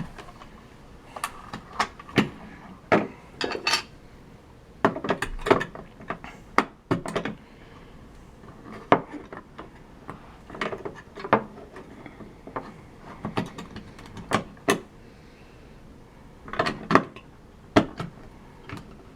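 C batteries being fitted into a plastic toy truck's battery compartment: irregular clicks, knocks and rattles of batteries and plastic being handled.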